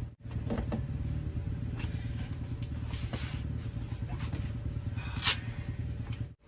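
A motor vehicle engine running steadily with a low, even rumble, and one sharp clack about five seconds in.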